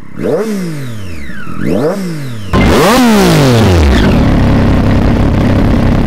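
Triumph Daytona 675R's inline-three engine through an Austin Racing GP3 pipe and carbon GP2R end can, a race-loud slip-on, revved in two quick throttle blips, each rising and falling sharply. About two and a half seconds in, the sound jumps much louder and rougher, heard from close to the pipe: one more blip, then the engine settles to a steady idle.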